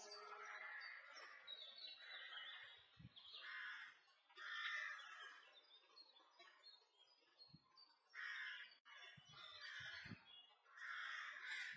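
Faint outdoor birdsong in short repeated phrases, with a few soft low thumps.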